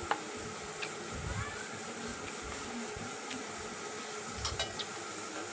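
Close-up eating sounds of someone eating instant noodles: soft chewing with a few sharp mouth clicks, over a steady faint hum.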